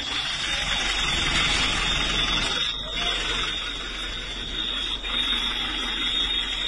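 A steady high-pitched tone over a constant hiss, with a brief dip a little under three seconds in.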